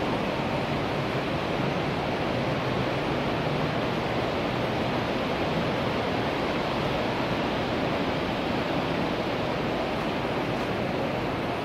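Steady, even rushing rumble of model trains running on a large layout, with no separate clicks or horn.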